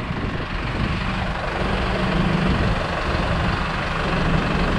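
Street traffic: cars passing and a truck engine running with a steady low hum that sets in about a second and a half in.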